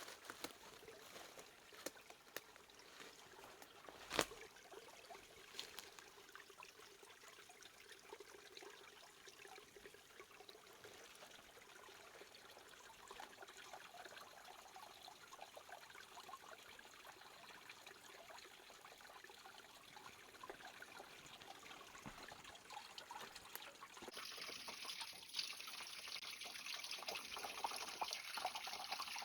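Small forest creek trickling, faint at first and growing louder about three-quarters of the way through. A single sharp click sounds about four seconds in.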